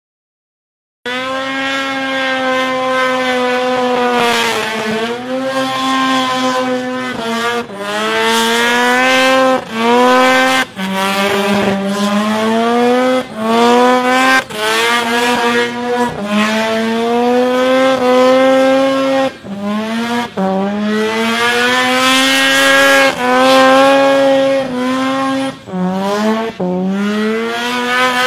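Car engine revving hard through a burnout, its pitch climbing and dropping again and again as the throttle is worked, with the hiss of spinning tyres underneath. It starts suddenly about a second in.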